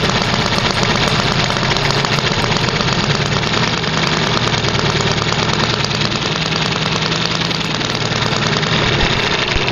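Small homemade single-cylinder four-stroke overhead-valve gasoline model engine running steadily at a fast firing rate, a loud, dense, even clatter.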